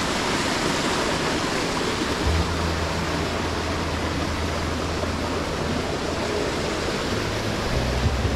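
Rushing water of a river waterfall and cascade, a steady, even wash of noise. About two seconds in, a steady low rumble joins it.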